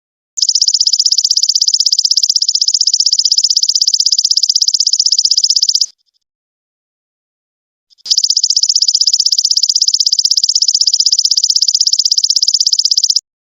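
Insect song of the golden locust (belalang emas): two long, high-pitched, rapidly pulsing trills of about five seconds each, separated by a gap of about two seconds.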